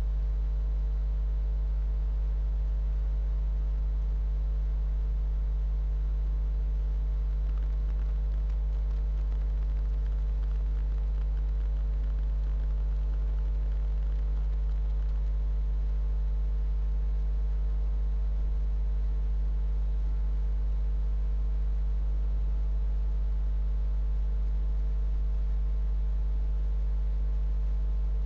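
Steady electrical mains hum picked up by the recording: a constant low buzz with a row of higher overtones, unchanging throughout, over a faint hiss.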